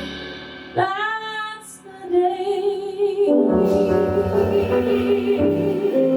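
Female jazz vocalist singing long held notes with vibrato, no words made out; about three seconds in the band comes in under her with full chords and a bass line.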